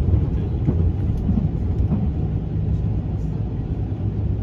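Running noise of a 283 series limited-express electric train heard inside the passenger car: a steady low rumble of the train travelling along the track.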